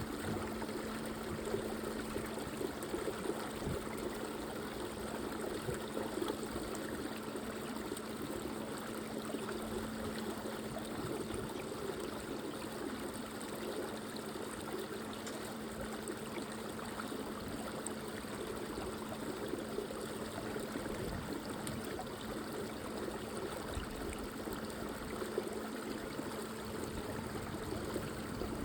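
Creek water flowing and trickling in a steady wash, with a faint steady low hum underneath.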